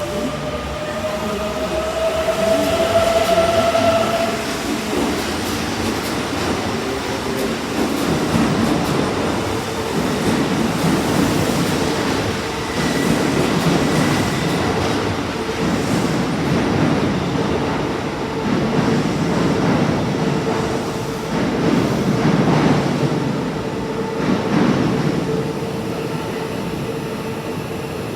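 Kintetsu 23000 series Ise-Shima Liner electric train pulling out of the station. Its motors whine, rising in pitch over the first four seconds, then the wheels rumble and clatter in repeated swells over the track as it moves off, with a steady hum underneath.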